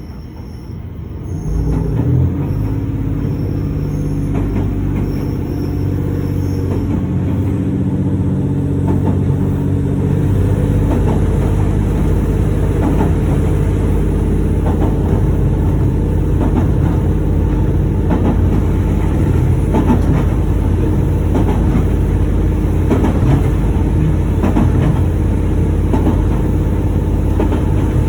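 Train running on the rails: a steady low rumble that grows louder about two seconds in, with wheels clicking over rail joints from about ten seconds on.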